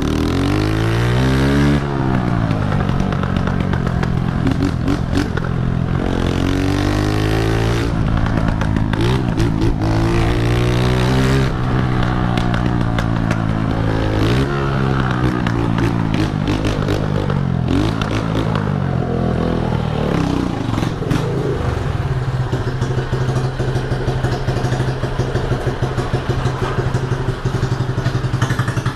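Honda CG125 single-cylinder four-stroke motorcycle engine, very loud, revving up and dropping back again and again as the rider accelerates and shifts, then settling to a steady low note for the last several seconds.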